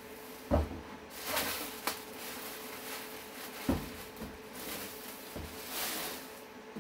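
Plastic wrapping rustling as it is pulled off a computer tower case, with two thumps as the case is handled on the table, about half a second in and again a few seconds later.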